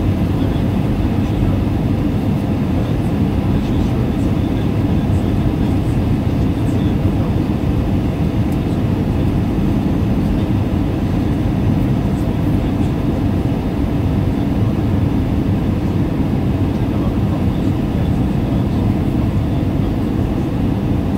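Steady cabin noise of an airliner descending on approach: engine and airflow noise heard from inside the cabin as an even low rumble.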